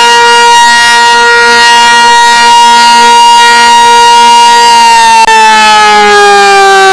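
Sentry 16V1T-B electromechanical siren sounding the attack signal, very loud. Its single tone holds steady at top pitch, then begins a slow downward glide about five seconds in, as the wavering attack cycle winds down before rising again.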